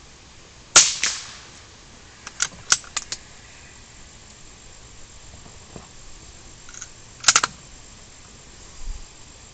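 A single rifle shot about a second in, with a short ringing tail, followed by a quick run of metallic clicks from working the rifle's action and another sharp cluster of clicks a few seconds later.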